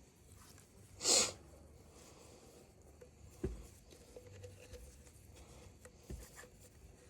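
A short, sharp hiss about a second in, then two dull knocks a few seconds apart: small handling sounds at a workbench.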